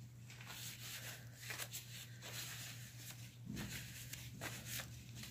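Faint scrapes and rustles of paint supplies being handled, a few soft brief strokes scattered through, over a steady low hum.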